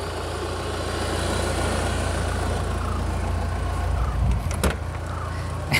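Mahindra Thar's diesel engine idling steadily, with two short clicks near the end.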